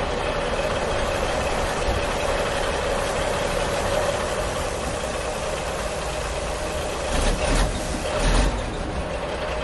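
Steady truck engine running sound with a constant hum, swelling briefly about seven and eight seconds in.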